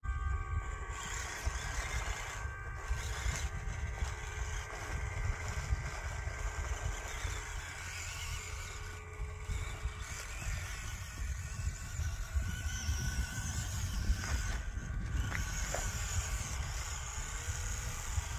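Steady whine of small electric motors with several high tones, over a continuous low rumble.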